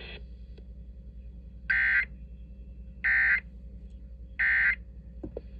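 Emergency Alert System end-of-message data signal: three short, identical digital screeches about a second and a half apart over a faint hum. It marks the close of the tornado warning broadcast.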